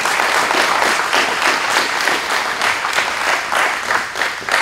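An audience applauding: a steady, dense patter of many hands clapping.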